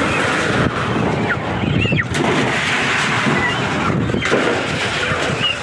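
Broiler chickens flapping and tumbling down a metal loading chute into transport crates: a loud, dense clatter of wings and thumps on metal, with a few short squawks.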